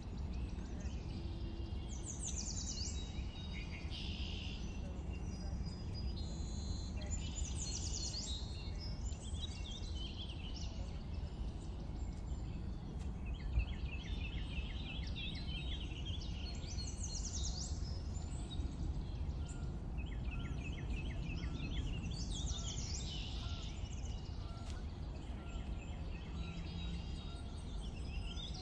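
Several small birds chirping and singing, with short sweeping calls and quick repeated trills, over a steady low background noise.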